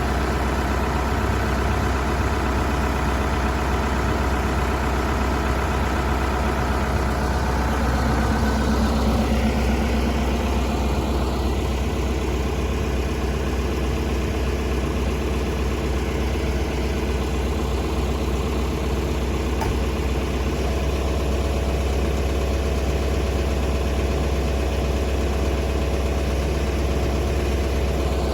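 Heavy diesel engine running steadily, briefly louder about nine seconds in.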